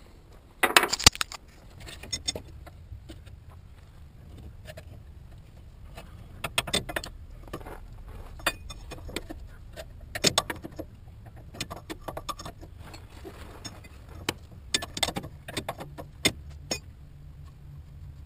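Intermittent metallic clinks and rattles of metal tools and parts being handled, over a low steady hum.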